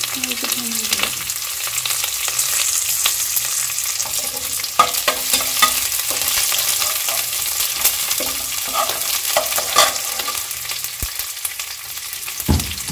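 Sliced shallots, fenugreek seeds and curry leaves sizzling in hot oil in a ceramic-coated pot while a ladle stirs them, scraping and tapping against the pot now and then. This is the tempering for Kerala coconut rice. There is a low knock near the end.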